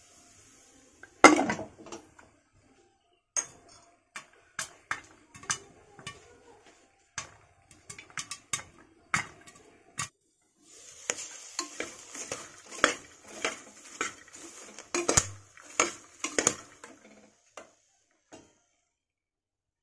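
Popcorn kernels popping in hot oil inside an aluminium pressure cooker, each pop a sharp click against the metal. The pops are sparse at first, then come thick and fast over a sizzle, and die away a couple of seconds before the end. There is one loud metal clank about a second in.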